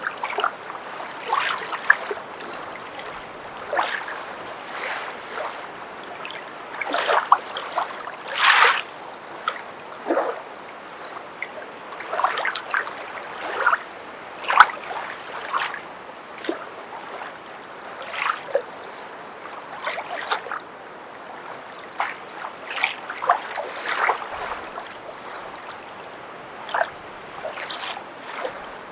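Footsteps wading through shallow water: irregular splashes about once a second over a steady wash of water.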